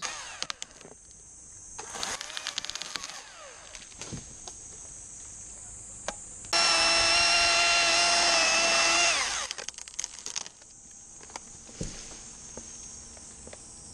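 Chainsaw running at full throttle for about three seconds, starting suddenly, then falling in pitch as the throttle is released. Insects buzz steadily in the background.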